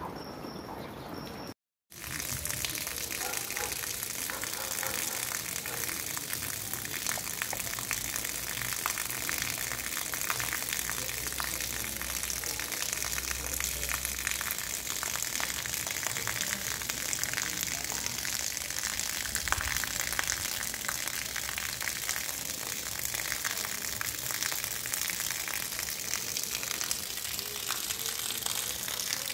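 Steady rain falling on a street: an even hiss dotted with many small drop ticks. It cuts out for a moment about two seconds in, then carries on unchanged.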